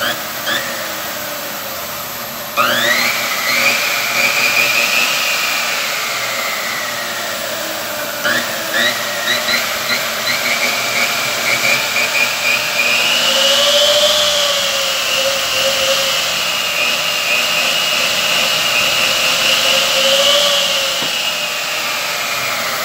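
Aluminum-cutting miter saw's electric motor switched on, spinning up with a high whine and then winding down. After a few short on-off blips it runs again for about ten seconds before winding down near the end. This is a test run of the saw, working again after its broken switch was replaced.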